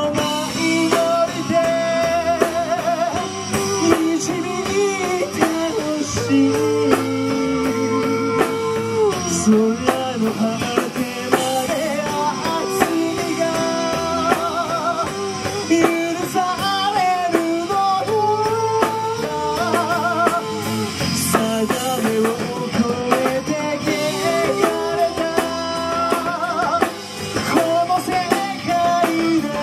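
A male singer sings a rock song live with a band, with guitar and drums. He belts long held notes with vibrato.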